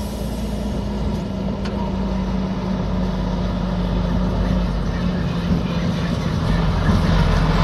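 Diesel dump truck's engine running as the truck drives up a gravel quarry road, a steady engine note that grows gradually louder as it approaches.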